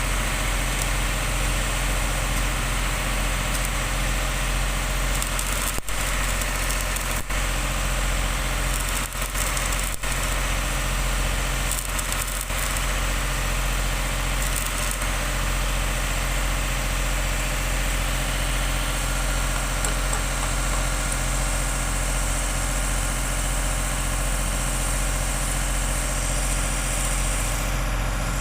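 Electric arc welding on a steel pipe flange: the arc's steady crackling hiss over the welding machine's low mains hum, broken for an instant a few times between about six and ten seconds in. The high crackle thins out near the end.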